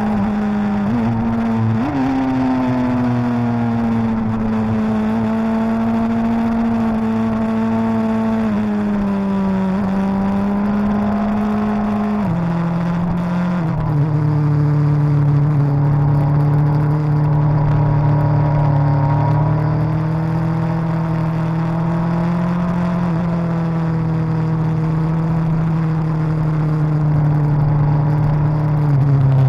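Suzuki GSX-R1000's inline-four engine running under load while the bike is ridden through corners, its pitch drifting gently up and down with the throttle. About twelve seconds in the pitch steps down and then holds lower and a little louder, with another quick change in pitch near the end.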